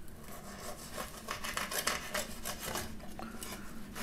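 Knife and fork sawing and scraping through battered chicken balls on a plate, a run of quick scrapes and small taps against the plate as the balls are cut open.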